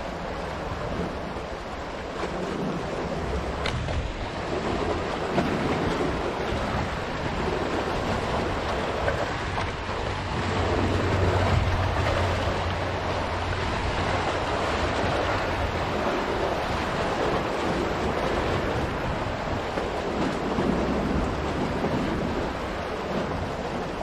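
Black Sea waves washing in and splashing against shoreline boulders, a continuous rush of surf that swells and eases, loudest about halfway through.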